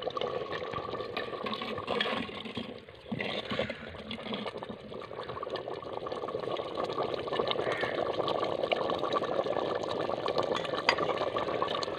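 Chicken curry boiling in a clay pot, a steady thick bubbling full of small pops.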